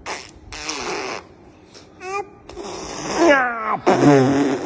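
A baby babbling: a breathy burst in the first second, then a few short voiced cries whose pitch falls, the loudest in the last second and a half.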